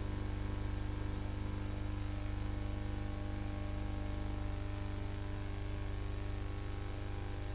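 Steady low hum and hiss of an old film soundtrack, with no music or speech over it.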